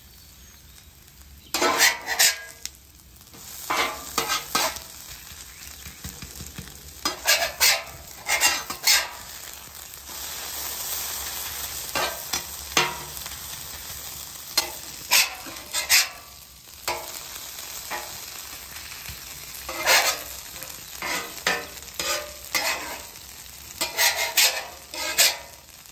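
A metal spatula scrapes across the steel plate of a Blackstone griddle in clusters of quick strokes as shredded hash-brown patties are flipped. Under it the potatoes sizzle steadily as they fry in oil, and the sizzle grows louder about ten seconds in.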